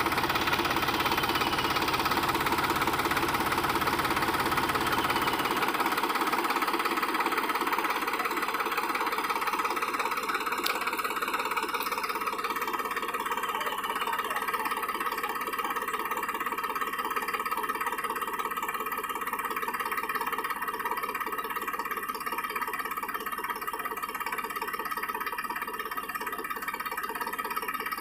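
Sonalika DI 35 tractor's three-cylinder diesel engine running steadily under load, straining to pull a trailer heaped with sand out of a muddy rut. The deep bottom end of the engine sound drops away about six seconds in, and the sound eases slightly toward the end.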